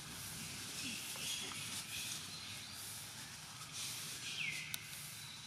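Steady faint outdoor ambience with a light hiss. About four and a half seconds in, a brief high call falls in pitch, followed by a small click.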